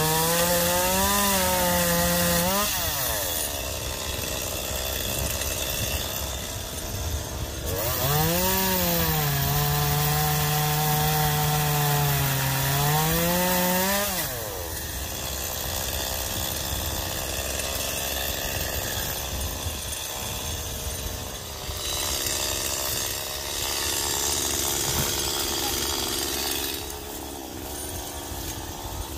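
Gas chainsaw revved hard twice, its pitch rising and holding high for a few seconds each time, then running on a little more quietly and without a clear pitch as it cuts into tree branches.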